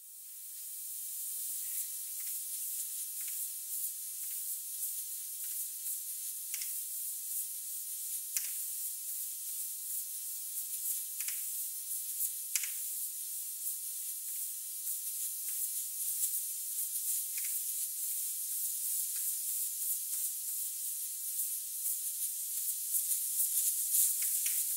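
Compressed air hissing out of a thin 3.5 mm silicone (polysiloxane) hose as the hose whips and flails about, with scattered sharp ticks from the flailing hose. The hiss fades in over the first second or so and grows a little louder near the end.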